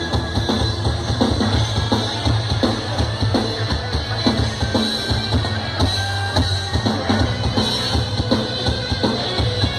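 Live rock band playing an instrumental intro: drum kit with bass drum and snare keeping a steady beat under bass and guitar.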